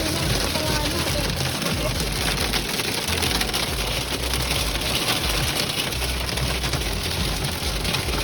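Heavy rain mixed with hail pelting down in a dense, steady clatter of countless small impacts.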